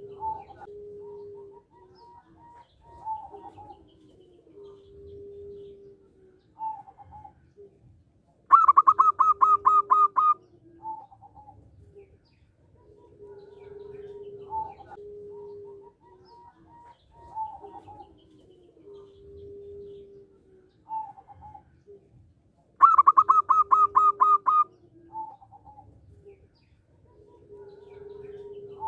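Zebra dove (perkutut) cooing: a soft, low cooing phrase repeated over and over. Twice a much louder, fast run of a dozen or so sharp, higher notes breaks in, lasting about two seconds each.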